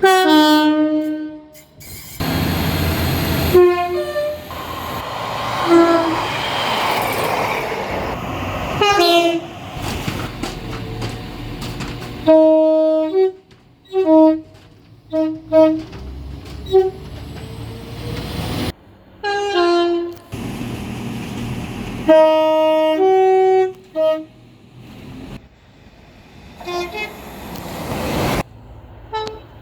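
Train horns sounding in a string of edited clips: short and long blasts at differing pitches, some in quick runs of notes. Between blasts there is the noisy running sound of a train.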